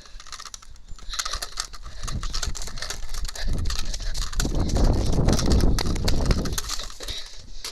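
Footfalls and handling noise from a camera carried at a run, with wind rumbling on the microphone; the rumble builds and is loudest about halfway through.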